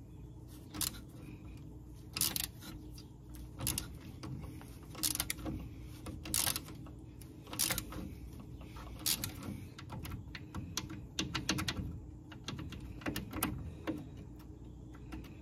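Ratcheting wrench clicking in short runs every second or two as a rusted lower shock bolt on the truck's front suspension is turned loose.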